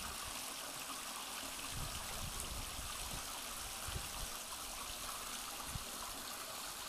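Steady soft trickle of running water at a rock pool, with a few faint low thumps.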